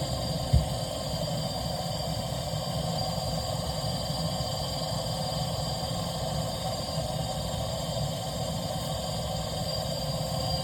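Numatic Henry vacuum cleaner running steadily with a constant whine and rush of air, one knock about half a second in.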